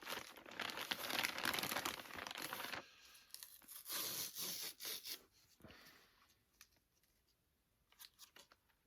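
Packaging being torn open and crinkled by hand in two spells: a long one, then a shorter one about four seconds in. It quietens after that, with a few light taps near the end.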